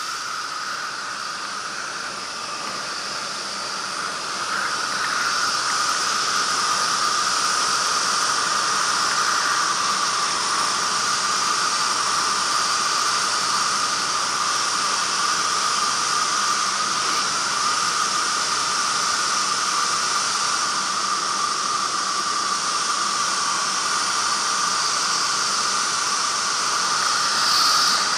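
Marquart MA-5 Charger biplane in flight, heard from a strut-mounted camera: a steady rushing hiss of wind and engine noise. It grows louder about four to five seconds in, then holds.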